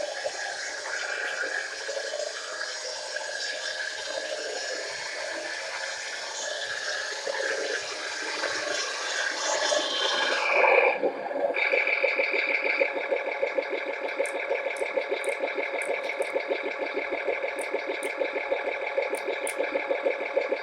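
RC truck sound unit playing a simulated diesel truck engine through a small speaker, thin with no bass. For the first ten seconds it is a noisy, rougher sound; then it changes to an even, rapidly pulsing idle.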